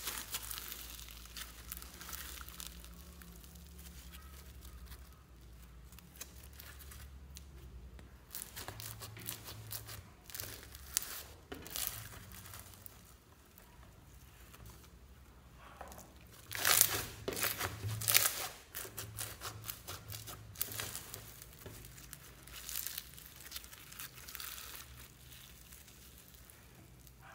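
White slime packed with foam beads being squeezed, pressed and stretched by hand, giving runs of fine crackling and popping. The crackles come in clusters with quieter gaps, loudest a little past the middle.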